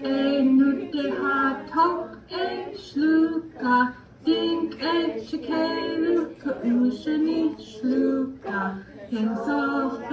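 A group of women's and children's voices singing a song in an Indigenous language a cappella, as a chant of held, repeated notes.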